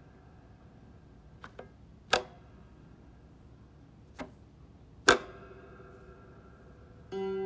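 Sparse music: a single sharp note that rings briefly, about every three seconds, with a faint double tick about one and a half seconds in, and a held low note that starts near the end.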